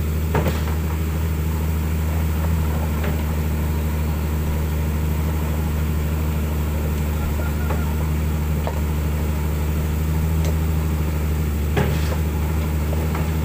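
Excavator diesel engines idling steadily, with a sharp knock about half a second in and another near the end.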